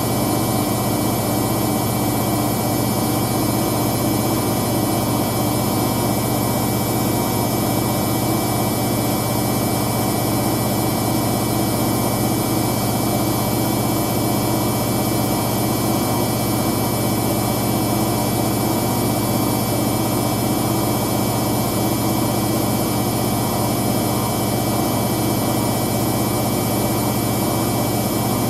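Hoover DYN9144D3X front-loading washing machine spinning a load of towels at high speed on its 1400 rpm spin-only program. It is a loud, steady drum rumble with a constant high motor whine and no change in speed.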